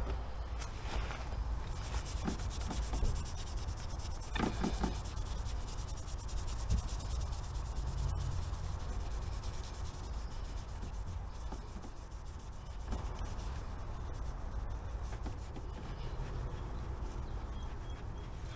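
Hand polishing of a Royal Enfield Classic 350's alloy engine casing: quick, continuous rubbing strokes against the metal, over a low background rumble.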